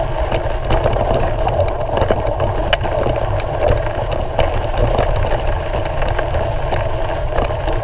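Steady ride noise from a Surly Long Haul Trucker touring bike rolling through snow: a constant low rumble with a noisy midrange band and scattered small clicks.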